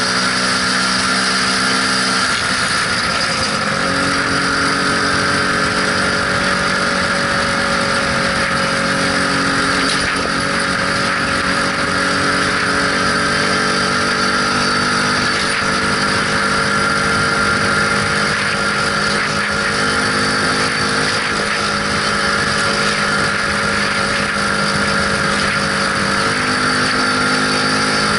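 Lambretta SX 200 scooter's two-stroke single-cylinder engine running at a steady cruise, its note rising and dipping slightly with the throttle, under a constant rush of wind and road noise.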